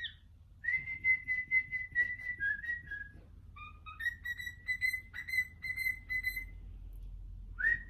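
A run of short, clear whistled notes, most held at one pitch with a few dipping lower. There is a pause about three seconds in and another after about six seconds, then a rising note near the end.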